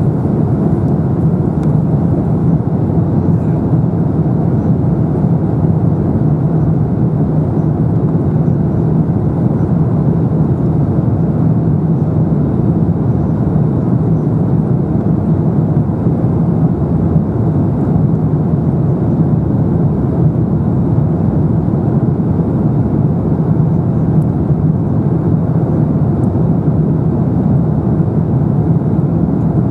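Steady low rumble of an Airbus A350-900 in flight, heard inside the cabin: its Rolls-Royce Trent XWB engines and the airflow over the fuselage, unchanging throughout.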